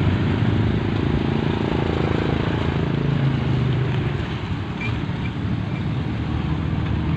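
A motor vehicle's engine running steadily under a constant rushing noise. The engine's hum is clearest in the first few seconds and fades into the rushing noise about four seconds in.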